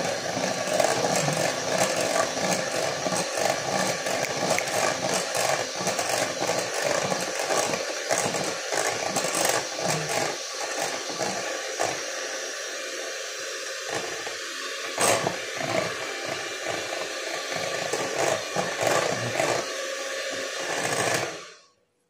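Handheld electric mixer running at slow speed, its beaters whirring and clicking against a glass bowl as they beat thick cheesecake batter. The motor cuts off suddenly near the end.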